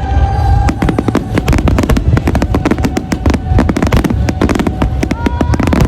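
Fireworks finale: a dense barrage of shells bursting, many sharp bangs a second over a continuous low rumble.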